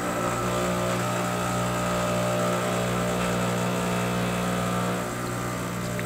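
Isomac heat-exchanger espresso machine's pump running with a steady hum as it pulls a shot of espresso. The hum eases slightly about five seconds in.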